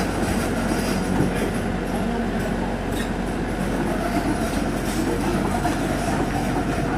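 Tracked earthmoving machine running steadily: a diesel engine hum with metallic clatter from its steel tracks.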